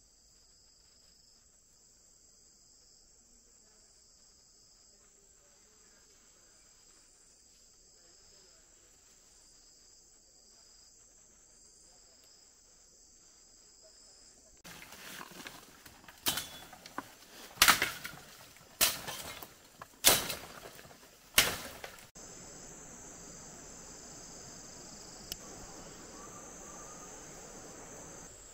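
Steady high-pitched chorus of rainforest insects, faint at first and louder after an abrupt change about two-thirds of the way in. In the middle comes a run of five loud sharp knocks, about one every second and a quarter.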